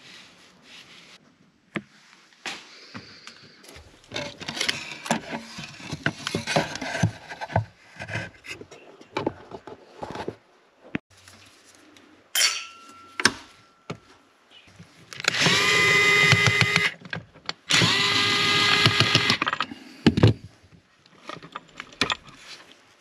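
Two runs of a DeWalt cordless impact driver on screws, each about a second and a half long with a short pause between. Before them come knocks and rattles of tools and parts being handled.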